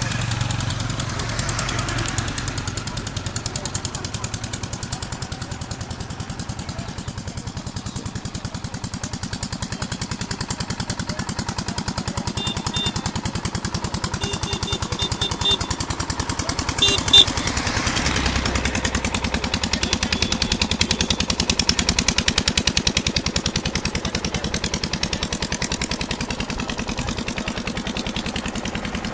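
An engine running steadily with an even pulsing throb, with a few short high beeps around the middle.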